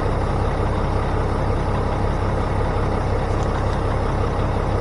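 Unimog's diesel engine idling steadily, a low even rumble.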